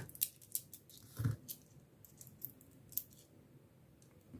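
Small metal air-compressor hose fittings lightly clicking and clinking against each other as they are handled, in a scatter of faint irregular clicks, with one soft low thud about a second in.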